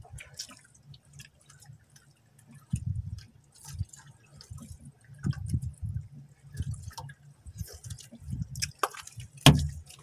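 Water lapping and slapping irregularly against a small boat's hull, with scattered small clicks of a plastic food container being handled and one sharp click near the end.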